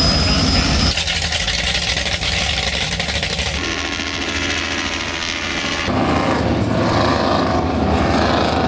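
Marine engines of offshore racing powerboats, cut together from several scenes. First a low rumble of boats idling at the dock. Then a light helicopter passes over. From about six seconds in, a boat runs by at speed, its engines loud under the rush of spray.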